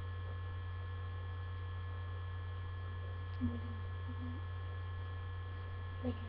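Steady low electrical hum with a few faint steady high tones over it, and a soft click about three and a half seconds in.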